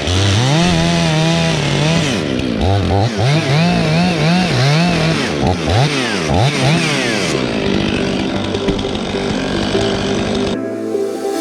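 Chainsaw engine revving up and down again and again, its pitch rising and falling, then running more steadily in the last few seconds.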